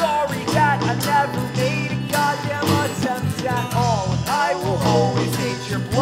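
Live acoustic band music: strummed acoustic guitars and a bass guitar with a man singing over them.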